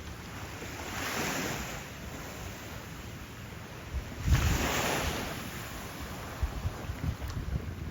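Gentle waves washing onto a sandy beach, the surf swelling twice, about a second in and again about four seconds in, with wind buffeting the microphone.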